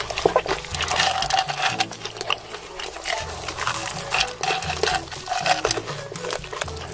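Close-miked eating sounds: wet chewing and lip smacking, a dense run of small clicks and squelches.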